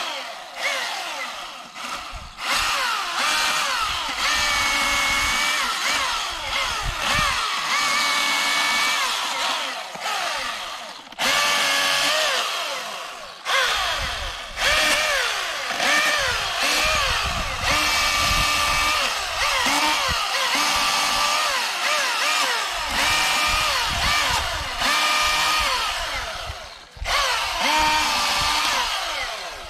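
Milwaukee M18 Fuel cordless chainsaw cutting a small birch log into firewood: the electric motor whines in repeated bursts as the trigger is squeezed and released between cuts, its pitch dipping and rising as the chain bites into the wood and frees.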